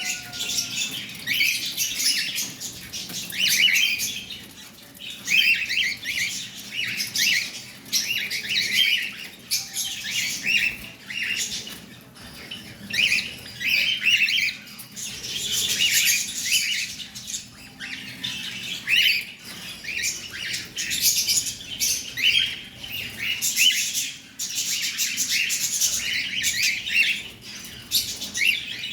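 Cockatiel chirping and squawking over and over in short, high calls.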